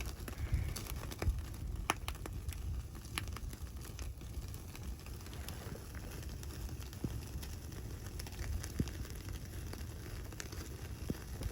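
Scattered sharp crackles and clicks over a steady low rumble.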